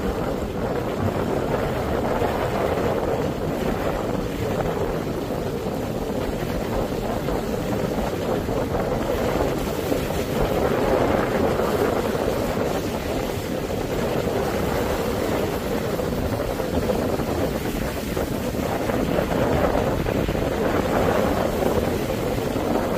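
Steady road and wind noise from a car driving slowly, a rushing sound that swells a little a couple of times.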